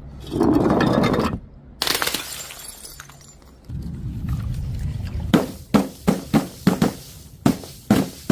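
Glass breaking: a crunching, shattering burst early on, then a run of about eight sharp clinks and knocks of glass in the last three seconds.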